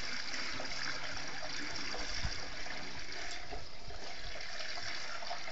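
Oil glugging and trickling from a metal can through a plastic funnel into a tractor's filler pipe. The pipe is filled almost to the neck and the funnel is brimming.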